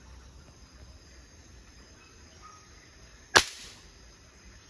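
A single air rifle shot about three and a half seconds in: one sharp crack with a short tail.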